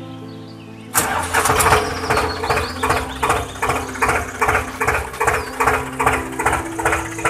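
Tractor engine sound starting abruptly about a second in, then chugging in a steady rhythm of about three beats a second.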